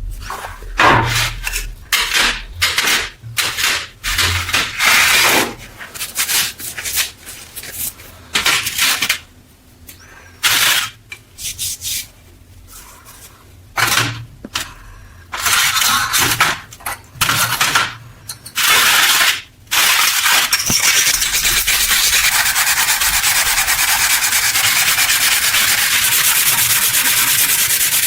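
Sanding or abrasive rubbing on metal, as rust is removed from antique flashlight parts: irregular back-and-forth strokes with short pauses, then about two-thirds of the way in a continuous, steady abrasive noise.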